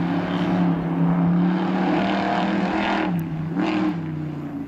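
Classic car engine pulling at a steady pitch along a mountain road, easing off briefly about three seconds in and then pulling again; the sound fades near the end as the car moves away.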